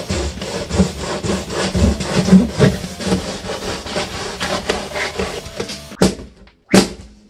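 Scraping, rubbing and knocking of hard objects being handled: a quick, irregular run of scrapes and taps, then two sharp knocks near the end.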